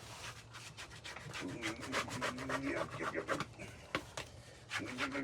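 Putty knife scraping and working Bondo body filler by hand on a mixing board: a fast run of short, gritty scraping strokes.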